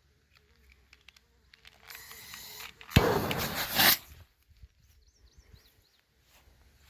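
A pyrotechnic smoke insert igniting: a softer hiss about two seconds in, then a sudden loud rushing hiss that lasts about a second and dies away. A faint steady buzz, like a fly, is heard before it, and a few short bird chirps follow.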